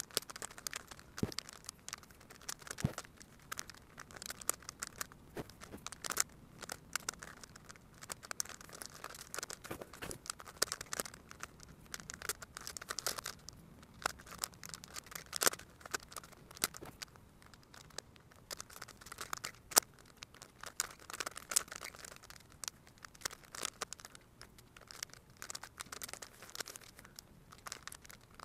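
A plastic Megaminx puzzle being turned by hand: its faces are twisted in a quick, irregular run of clicks and scraping.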